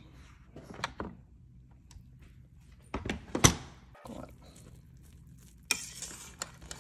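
Lid of an electric pressure cooker being turned and lifted off after the pressure release: a light click, then a couple of clunks about three seconds in as the lid comes free. A short hiss follows near the end.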